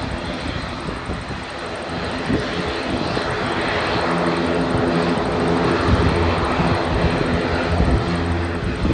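The twin turboprop engines of a Binter ATR 72 running at taxi power: a steady propeller drone with a hiss over it, growing gradually louder as the aircraft turns and rolls toward the microphone. Wind buffets the microphone near the start.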